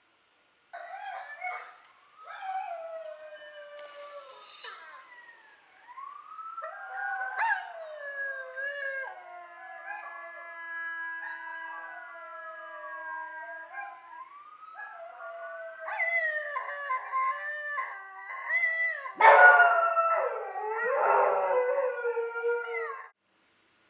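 A chorus of canine howls: several long, gliding howls overlap and rise and fall in pitch. The howling grows louder and busier near the end, then cuts off suddenly.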